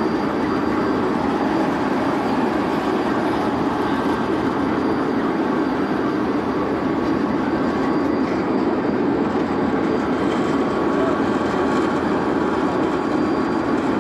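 Pakistan Railways diesel locomotive engine running steadily at close range during coupling to the coaches.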